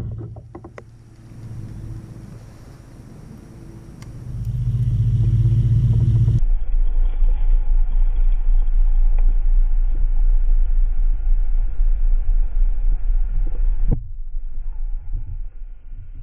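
Wind rumbling on an action-camera microphone: a low, buffeting rumble, quieter for the first few seconds, then loud and steady, easing off near the end.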